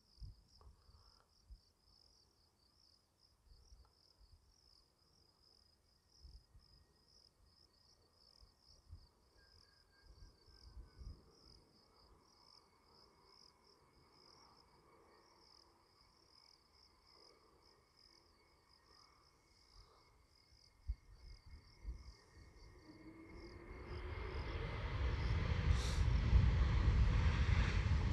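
Insects chirping, a fast steady pulsing high chirp, with little else for most of the time. About five seconds before the end, the jet engine noise of an Airbus A321 rolling out on the runway after touchdown swells quickly and becomes loud, with a rising whine.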